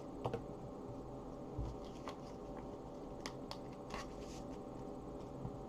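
Trading cards being slid into plastic card sleeves: a few faint, scattered rustles and light clicks.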